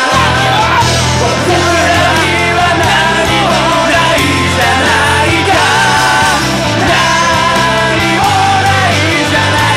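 Rock band playing a loud, driving song on electric guitars, bass and drums.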